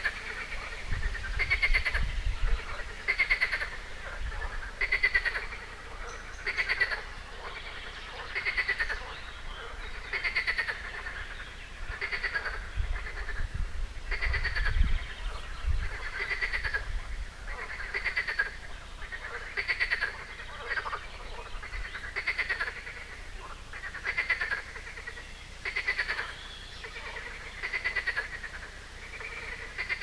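Frogs croaking in a pond: a rattling call repeats about every one and a half to two seconds. A low rumble comes in twice, near the start and around the middle.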